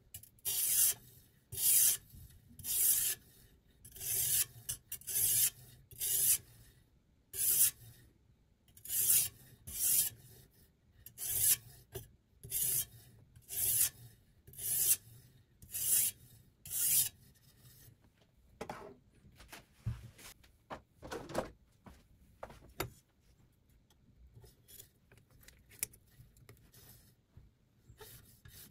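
Sharpening stone on the guide rod of a Sytools Beast fixed-angle knife sharpener stroked along the edge of a clamped chef's knife: about sixteen even scraping strokes, roughly one a second, as the bevel is ground. After about 17 seconds the strokes turn quieter and duller, then faint.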